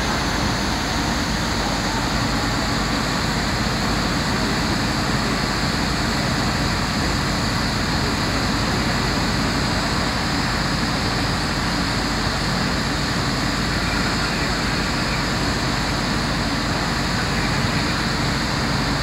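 Steady, unbroken drone of fire engines' diesel engines running at the scene, mixed with street traffic noise.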